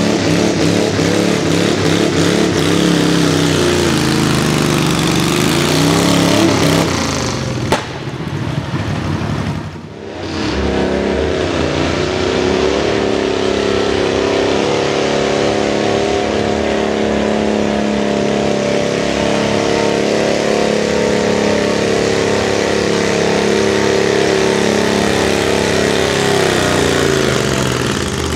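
Stock V-twin pulling tractor engine running hard under load, its revs falling over the first few seconds. A single sharp click comes near eight seconds, followed by a short break. The engine then revs up again, holds steady at high revs for a long stretch and drops off near the end.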